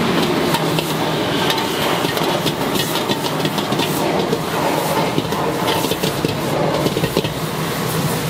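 Metal ladle repeatedly clanking and scraping against a steel wok as prawns in sauce are stir-fried, over the steady rush of a high-flame gas wok burner and the sizzle of the food.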